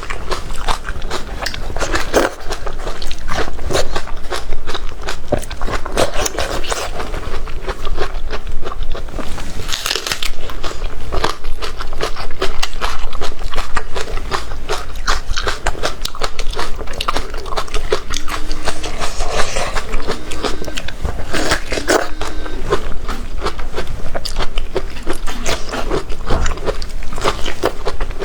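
Close-miked chewing and biting of crunchy food: a dense run of sharp crunches and crackles.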